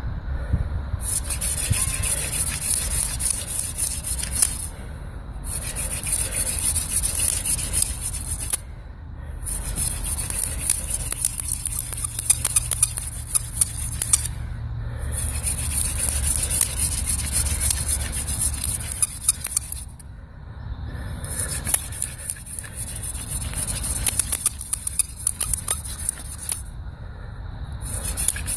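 Friction-fire hand drill of willow and mullein: the spindle is twirled between the palms and grinds in the hearth board's notch while trying to raise an ember. It makes a dry, scratchy rubbing in bouts of a few seconds, with six short breaks.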